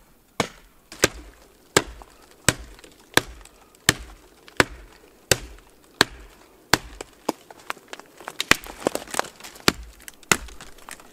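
Wood being chopped: a steady run of sharp strikes, one about every two-thirds of a second, that come closer together and messier a little past two-thirds of the way in.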